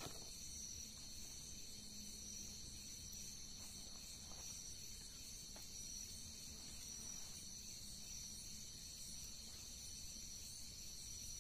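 A steady chorus of crickets, a continuous high-pitched trill, with a few faint soft knocks from vegetables being handled on a wooden chopping board.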